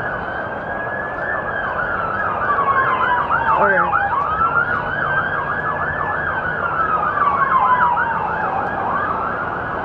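Police car sirens passing: a slow wail rising and falling over several seconds, with a fast yelp sweeping up and down alongside it in two stretches.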